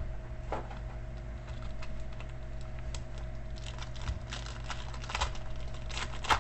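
Scattered light clicks and taps, a few at a time with short gaps, over a steady electrical hum.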